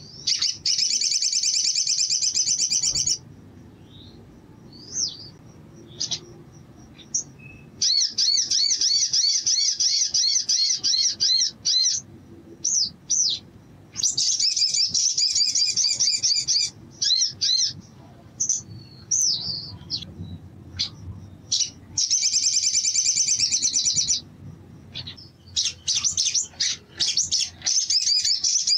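Male olive-backed sunbird singing: five fast, high trilling phrases of about two to four seconds each, with short sharp chirps in between.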